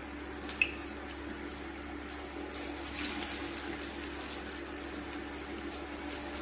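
Suji-and-besan tikkis shallow-frying in a little hot oil in a pan: a steady sizzle with scattered small crackles over a faint low hum. One short click about half a second in.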